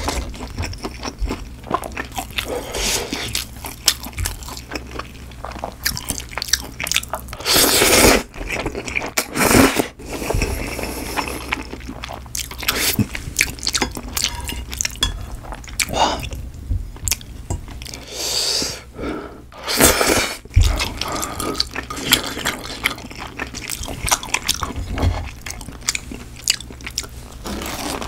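Close-miked eating of creamy carbonara spicy ramen noodles: steady chewing and mouth sounds, with a few louder slurps as noodles are drawn in, about a third of the way in and again about two thirds in. Chopsticks scrape the noodle tray now and then.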